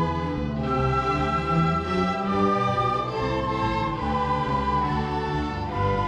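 Orchestra playing slow, held chords, with the notes shifting every second or so.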